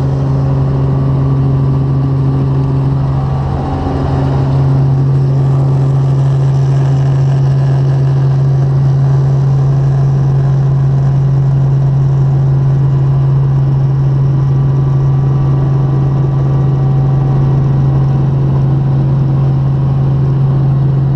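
Small helicopter's engine and main rotor running on the ground, heard from inside the cabin: a loud, steady drone with a strong low hum, a little louder from about five seconds in.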